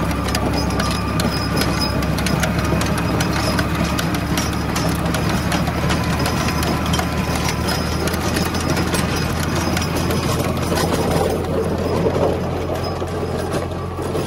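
New Holland 480 tractor engine running steadily while its rotavator tills dry soil, a constant low drone under a dense patter of clicks from clods and stones striking the spinning blades and hood.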